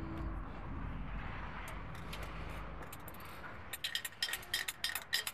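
A steady low hum, then from about three and a half seconds in a run of quick light clicks as a hand screwdriver works at the fasteners of a pickup truck's grille.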